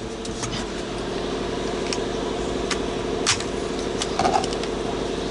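Steady mechanical hum with several sharp clicks and knocks from plastic steering-column parts being unclipped and handled.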